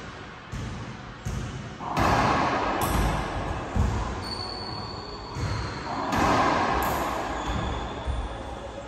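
Racquetball rally: the rubber ball smacked by racquets and bouncing off the court's walls and floor, a hit about every second, each with a long echo in the enclosed court.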